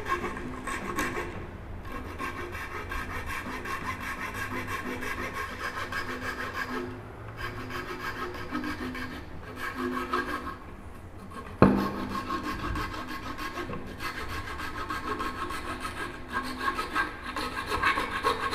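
A bare hacksaw blade held in the hand, sawing through wood in quick back-and-forth strokes to trim a protruding leg tenon flush with the stool seat. The strokes pause briefly twice, and a single sharp knock about two-thirds of the way through is the loudest sound.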